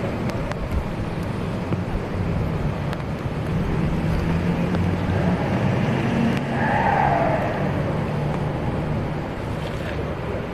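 A motor vehicle's engine running nearby, with a steady low hum and outdoor noise, growing louder past the middle and easing off toward the end.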